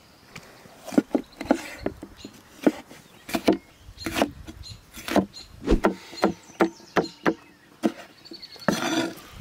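Broad kitchen knife chopping a yellow bell pepper on a wooden chopping block, the blade knocking against the wood in irregular strokes about one or two a second, with a quicker run of cuts near the end.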